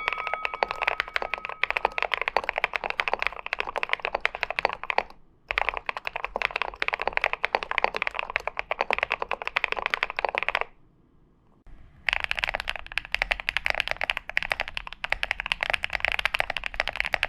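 Very fast typing on GMK87 mechanical keyboards with PBT keycaps: a dense stream of key clacks in three runs, with a short break about five seconds in and a pause of about a second near two-thirds through. A bell's ring dies away over the first two seconds.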